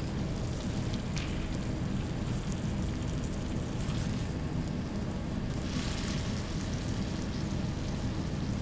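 Steady noise of a food-stall kitchen: a low, even rumble from the cooking setup, with faint sizzling on the griddle and a few light clinks of utensils.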